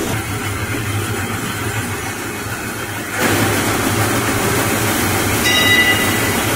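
Twin-screw food extruder and its die-face rotary cutter running while extruding and cutting puffed pea snaps: a steady mechanical hum with a low drone. It gets louder about three seconds in, and a brief high whine joins near the end.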